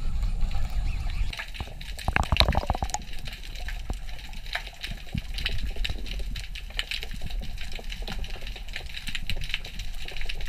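Underwater sound picked up by a camera in its housing: a steady low water rumble with scattered clicks and crackles, and a dense run of clicks about two to three seconds in.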